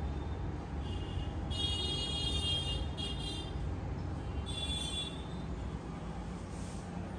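Steady low background hum and rumble, with three short spells of high-pitched squealing about one and a half, three and four and a half seconds in.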